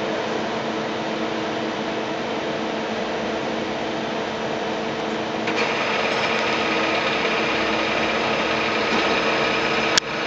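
Doosan Puma 240 MB mill-turn CNC lathe running with a steady hum and whine. About halfway through, a higher-pitched whine joins in and the sound gets a little louder, and a single sharp click sounds near the end.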